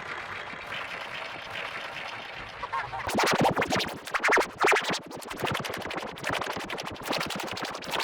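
Heavily effected meme-remix audio: a smeared, muffled passage, then from about three seconds in a fast stuttering, chopped loop that sounds like record scratching.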